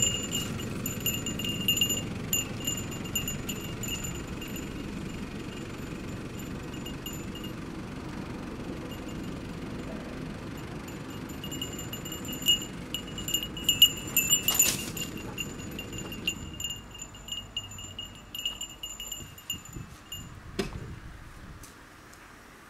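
Toyota Hiace van's engine and tyres rumbling low as it rolls slowly across grass, the rumble dying away about three-quarters of the way through as the van stops. Over it, small bells jingling steadily in clear high tones, busiest a little past the middle, and a single sharp knock near the end.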